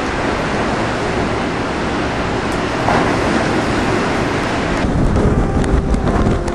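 Storm wind buffeting the microphone over waves breaking and churning around dock pilings, a loud, steady rushing noise that thins in its higher part about five seconds in.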